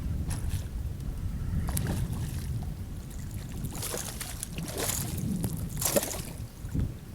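Water splashing and sloshing beside a kayak, with a few sharper splashes in the second half, over a low wind rumble on the microphone.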